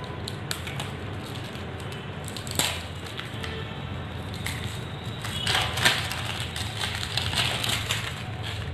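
Plastic shrink wrap over a bottle cap being cut and picked at with a cutter, then pulled off and crinkled: scattered small clicks and crackles, busiest a little past halfway.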